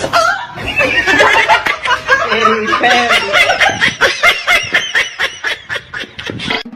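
People laughing hard, in quick repeated bursts of laughter.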